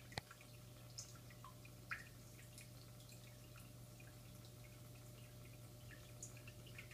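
Faint drips and trickles of water from an aquarium filter, over a steady low hum, with a single sharp click just after the start.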